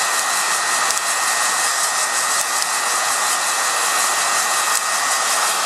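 A heat gun blows hot air steadily into a flour-sifter coffee roaster, with a thin high whine running through it. A few sharp pops come from the coffee beans cracking, a sign that the roast is nearly done.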